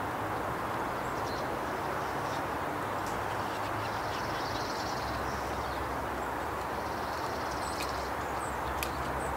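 Steady outdoor background rush with a low rumble under it, and faint small songbird chirps and short trills high above it. A few sharp ticks come near the end.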